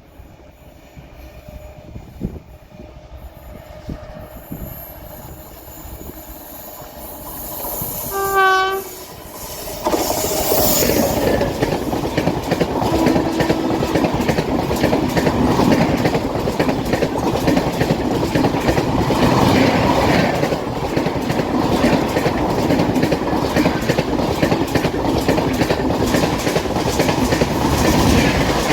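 An Indian Railways train approaches with a slowly rising rumble, and its locomotive sounds one short horn blast about eight seconds in. About two seconds later the train passes close by, loud, with wheels clattering rhythmically over the rail joints.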